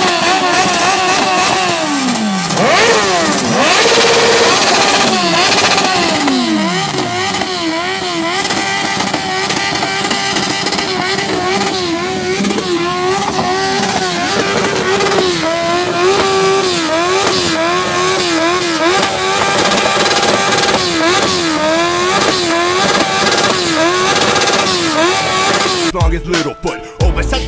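Motorcycle engines idling and being revved, with the revs sinking away after several blips in the first few seconds, over crowd voices. Near the end the sound cuts abruptly to music.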